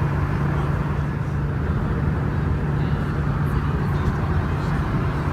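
Steady drone of a jet airliner cabin in flight: engine hum and rushing airflow, a constant low hum under an even roar.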